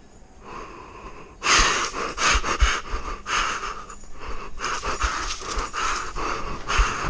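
A person's heavy breathing: a string of loud, noisy breaths in and out, faint at first and loud from about a second and a half in.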